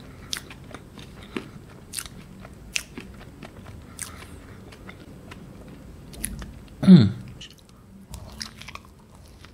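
Close-miked eating: a person biting and chewing a Burger King Hershey Sundae Pie, with sharp wet mouth clicks and smacks scattered throughout. About seven seconds in comes a short low voiced sound that falls in pitch.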